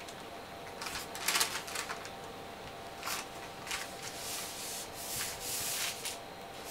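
Baking parchment rustling and rubbing as hands roll a sponge cake up in it, in several short bursts, the longest about four to six seconds in.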